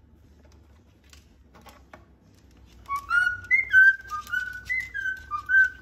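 Whistling: a quick run of about a dozen short, clear notes hopping up and down in pitch, starting about three seconds in.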